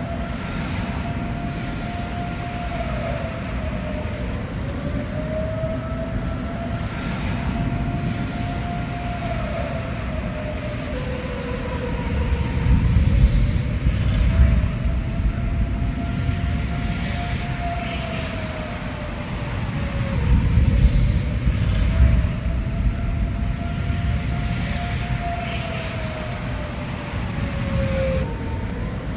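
Outdoor civil-defence warning siren sounding a tornado warning: one long wail whose pitch sags and recovers every few seconds. A low rumble swells under it twice, about a third and about two-thirds of the way through.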